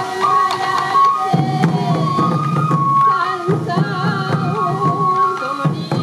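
Traditional Sansa odori festival music: a bamboo flute holding a steady melody over a singing voice, with taiko drums struck throughout.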